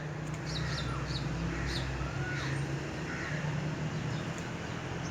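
Birds calling: a run of short high chirps in the first half and several short curved calls throughout, over a steady low hum.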